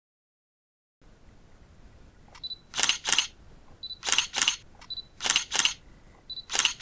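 A topwater stickbait being worked across the surface in double twitches of the rod. Four pairs of short, sharp splashy pops come about once a second.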